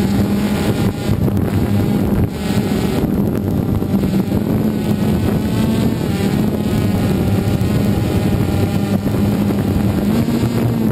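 DJI Phantom 2 quadcopter's electric motors and propellers buzzing steadily in flight, heard up close from the camera mounted on the drone. The pitch rises slightly near the end as the drone starts to climb.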